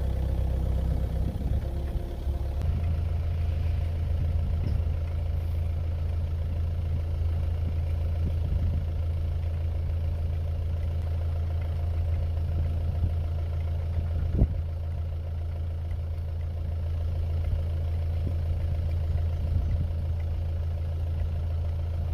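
Mini excavator's diesel engine running steadily at idle, its note stepping up slightly about two and a half seconds in, with one sharp metallic knock about two-thirds of the way through.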